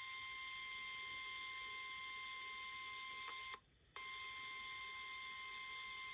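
NOAA Weather Radio warning alarm tone: one steady, unwavering beep over radio hiss, signalling that a warning broadcast is about to follow. The tone cuts out briefly about three and a half seconds in, then resumes.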